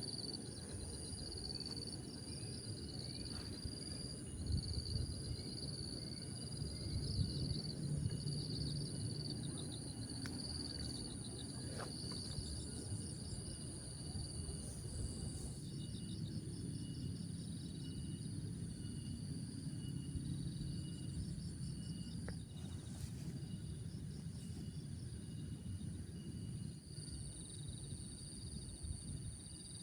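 Insects chirping outdoors: a steady high-pitched drone and repeated pulsing trills, over a constant low rumble. There are a few faint clicks along the way.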